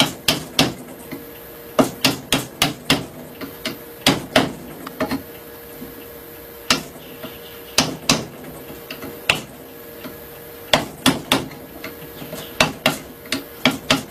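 Sharp hammer taps on a chisel cutting wood, coming irregularly in short runs of two to five strikes with brief pauses between, as the mouth of a wooden rebate plane is trimmed straight.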